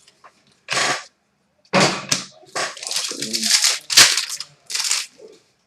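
Trading cards and their plastic packaging being handled, in several short bursts with a sharp click about four seconds in.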